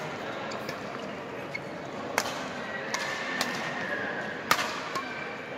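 Badminton rackets striking a shuttlecock in a rally: three sharp smacks about a second apart, the loudest late on, over the steady murmur of a hall crowd.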